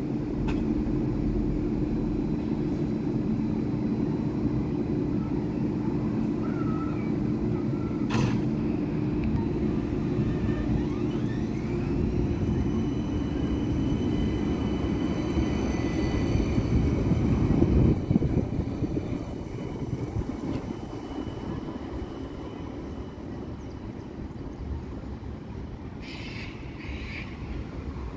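Parramatta Light Rail tram, a CAF Urbos electric light rail vehicle, humming steadily while standing, with a single sharp click about a third of the way in. Its traction motors then start a rising whine that levels off into steady high tones as it moves off. It is loudest as it passes, just past the middle, then fades away.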